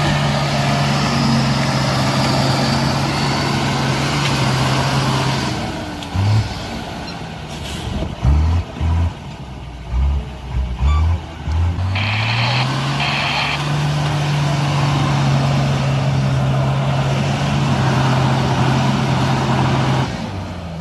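Mercedes-Benz Unimog truck's diesel engine working hard as the truck drives through mud and climbs a steep bank: a steady engine drone, then from about six seconds in a run of short loud bursts as the throttle is blipped on and off, before the revs rise about twelve seconds in and hold steady under load.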